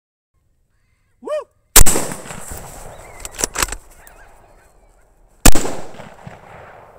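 Two unsuppressed-loud rifle shots, about three and a half seconds apart, each followed by a long rolling echo across the field, taking a pair of coyotes. A short high call, rising and falling, sounds about half a second before the first shot. A few sharp clicks fall between the two shots.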